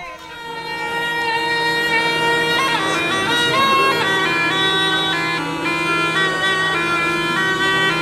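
Snake charmer's pungi (been), a gourd-bodied double-reed pipe, playing a reedy melody that moves in steps over a steady drone. It swells in over the first second.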